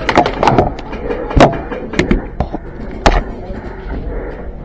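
Airsoft gunfire: about five sharp cracks and knocks at irregular spacing, with scattered smaller clicks between them.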